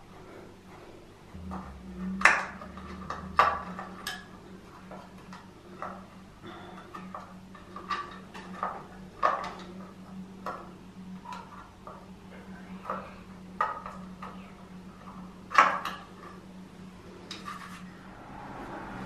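Irregular metallic clicks, clinks and small knocks of a hand screwdriver and metal coat hooks being screwed onto a wooden hook board, with a few sharper knocks standing out. A steady low hum runs underneath from about a second and a half in.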